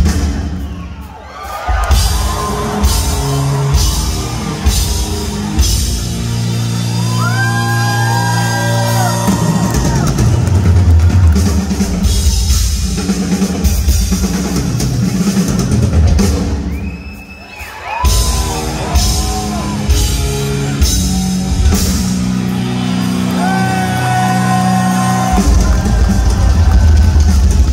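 Live rock drum solo on a full drum kit: rapid drum and cymbal strikes over sustained low notes and pitched tones. It drops away briefly about a second in and again around seventeen seconds, then comes back in.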